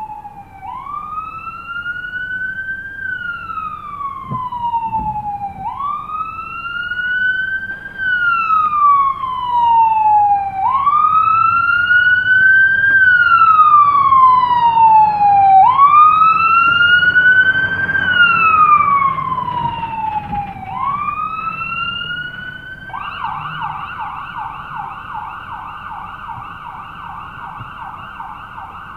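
Fire engine siren sounding a slow wail, each cycle rising quickly and falling slowly over about five seconds. It grows louder, then eases off, and about three quarters of the way through switches to a fast yelp.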